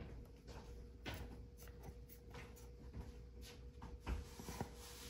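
Light plastic clicks and rubbing as a hard drive is worked into a plastic NAS drive tray, with two sharper clicks a little after four seconds in.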